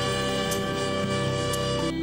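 Praise music playing, with one long held melody note over steady chords that moves to a new note near the end.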